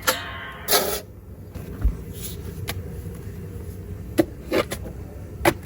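Hand digging: a metal tool strikes the ground in a series of sharp knocks, about six in all, the first ones with a brief metallic ring, and one dull low thud.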